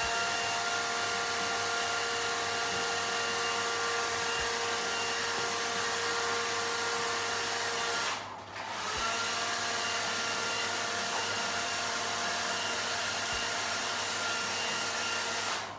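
Handheld hair dryer running, a steady rushing hiss with a motor whine, blowing warm air over a thawed feeder mouse. It drops out for under a second about eight seconds in, then runs on and shuts off near the end.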